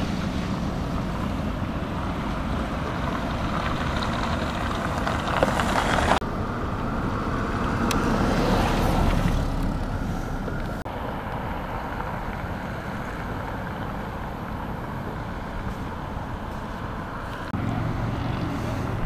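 Wind buffeting the microphone over a low outdoor rumble, its character changing abruptly about six and eleven seconds in.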